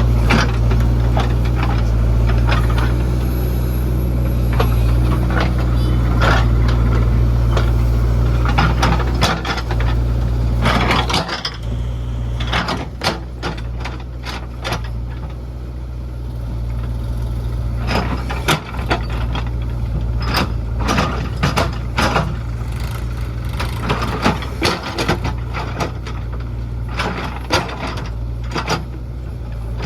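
Heavy diesel machinery engine running steadily, with frequent sharp clanks and knocks that come thicker from about twelve seconds in, as the engine gets a little quieter.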